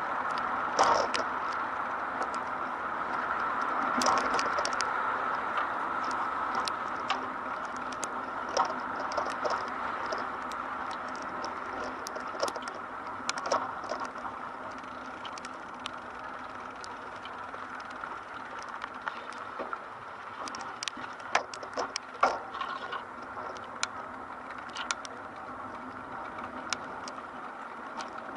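Steady city street noise with scattered irregular taps and clicks, a few sharper ones standing out.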